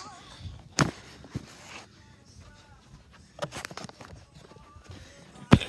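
A few sharp knocks and thumps, one about a second in, a cluster a little past the middle and the loudest near the end, over faint dance music.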